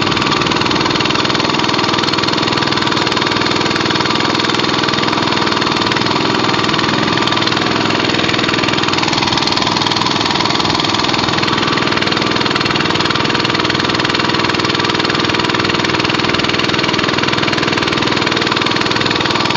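Small boat engine running steadily and loud, close by, as the boat moves through floodwater.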